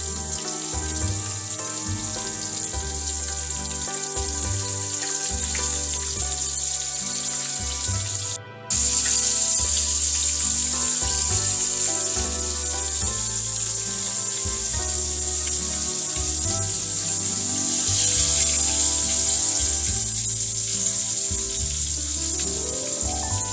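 Oil sizzling steadily as small coated fish fry in a frying pan, a constant high hiss, with background music underneath. The sound drops out for a moment about eight seconds in.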